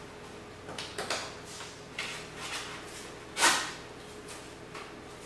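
A nylon plate carrier and its magazine pouches being handled: a few short scraping, rustling sounds, the loudest about three and a half seconds in.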